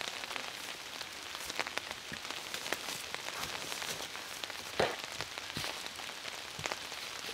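Steady rain falling, with scattered louder drop hits.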